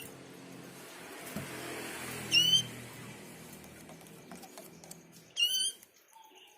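Sooty-headed bulbul giving two short, loud, warbling calls about three seconds apart, over a low steady hum.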